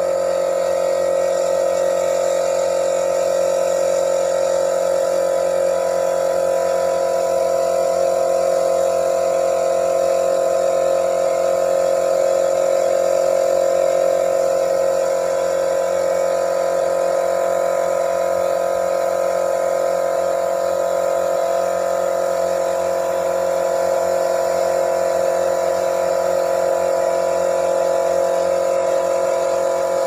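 Compressed-air spray gun hissing steadily as it sprays, over the continuous hum of an air compressor motor. The highest part of the hiss drops away just before the end as the spraying stops.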